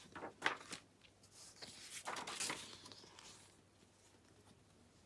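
Sheets of watercolour-printed tracing paper rustling and crackling as they are handled and slid over one another, with a sharp crackle about half a second in and a longer rustle around two seconds in.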